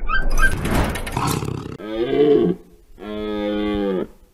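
A brief loud rushing noise gives way, about two seconds in, to a red deer stag roaring: a short bellow, then a longer drawn-out one. This is the stag's rutting call.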